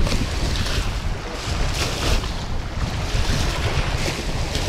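Wind rumbling on the microphone over choppy water, with small waves washing against the sloped concrete bank in hissing surges about once a second.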